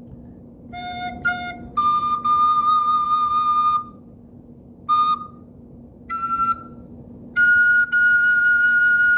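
Soprano recorder playing a short phrase of single held notes: two short low F's, a long high D, a short D, a short high E played with the thumb hole half open, then a long high F that rings past the end.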